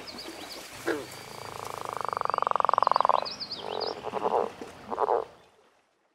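Frog croaking: a long, rapid pulsed croak that swells louder from about one to three seconds in, then a few shorter croaks, with faint high chirps over them. The sound fades out just before the end.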